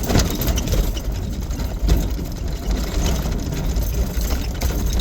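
Off-road vehicle's engine running as it drives a rough dirt trail, a steady low rumble with a couple of sharp knocks from the vehicle jolting, one at the start and one about two seconds in.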